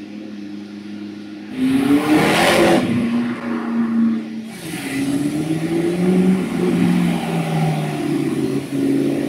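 McLaren MP4-12C's twin-turbo 3.8-litre V8 accelerating: a low, steady engine note, then a sudden loud burst of revs about a second and a half in, and from about five seconds the engine pulls up again, rising in pitch.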